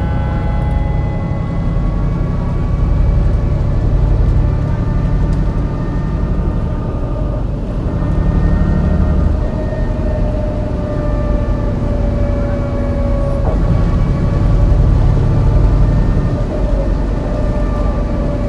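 Engine of a MAN NL202 CNG city bus running under load, its ZF Ecomat automatic gearbox whining with a pitch that slides slowly down. The engine has a bad misfire.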